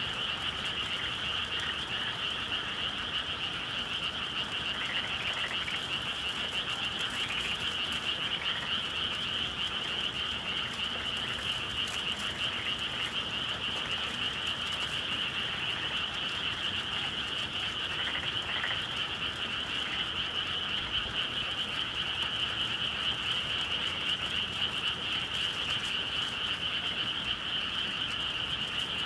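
Dense chorus of many frogs calling together, a steady unbroken trilling with no pauses, typical of rice paddies on a spring evening.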